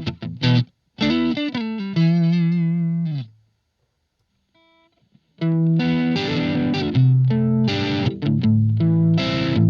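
Electric guitar played through a Blackstar ID:Core Stereo 40 amp with effects: a phrase ending on a held note with vibrato that fades out about three seconds in, a pause of about two seconds, then playing resumes with denser, brighter chords and notes.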